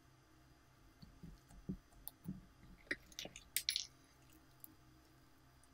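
Gold glitter slime studded with small beads being squished and folded between the fingers: a few soft squelches, then a quick run of sharp clicks and crackles about three seconds in.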